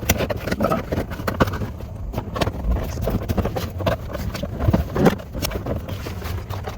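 Irregular clicks and knocks of plastic steering-column trim being handled and snapped into place.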